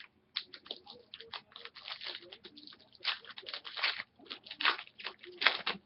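Crinkling and crackling of plastic or foil card packaging being handled, a dense run of short crackles with louder bursts in the middle and near the end.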